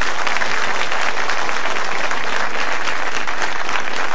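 Studio audience applauding with dense, even clapping.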